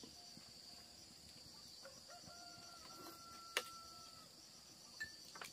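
Faint countryside background: insects trill steadily, and a distant rooster crows in one long held call in the middle. There is a single sharp click a little after halfway.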